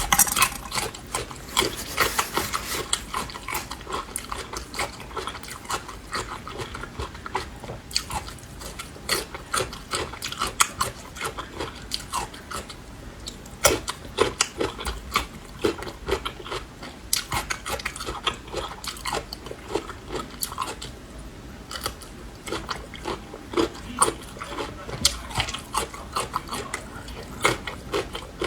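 Close-up crunching and chewing of Laba garlic, whole garlic cloves pickled in vinegar until green, crisp crunches coming irregularly, several a second.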